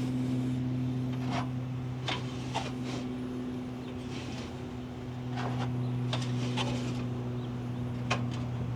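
Wires zip-tied to a stiffer solar-panel wire being pulled back through the truck's frame rail, with scattered short scrapes and ticks as they drag through, over a steady low hum.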